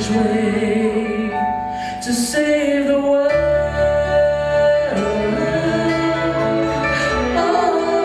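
A man singing a Christmas ballad with instrumental accompaniment, holding long notes.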